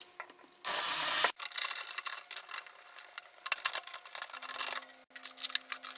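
Metal barn door rail hardware being handled and fitted: many small clicks and rattles. A short, loud rushing noise comes just before them, about a second in, and a faint steady hum starts near the end.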